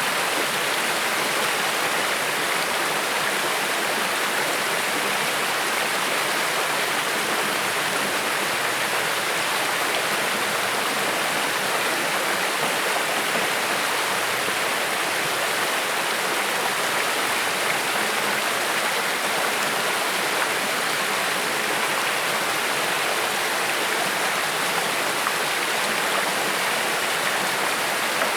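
A creek flowing over rocks: a steady rushing and splashing of running water, even throughout.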